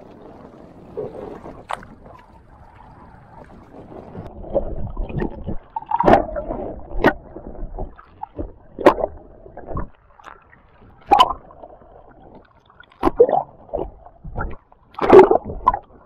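Muffled seawater sloshing and gurgling around a camera dipped under the surface, with irregular sharp knocks and splashes. It grows louder from about four seconds in.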